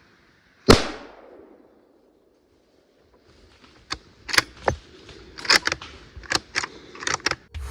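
A single loud gunshot cracks about a second in and dies away quickly. A few seconds later comes an irregular run of about ten sharp cracks and snaps.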